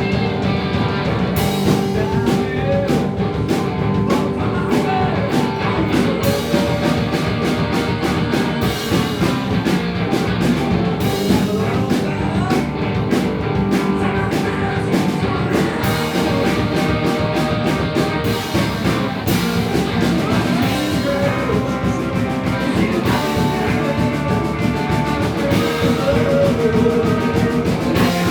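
Live rock band playing a song, with a steady drum beat under guitar.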